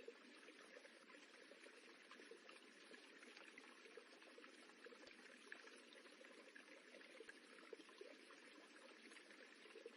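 Faint, steady rippling of running water: a constant wash with small splashes flickering through it.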